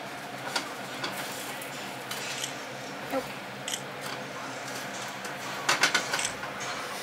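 A plastic spatula tapping and scraping against a frying pan as slices of bread are turned, with a quick run of clicks about six seconds in. A steady low hum runs underneath.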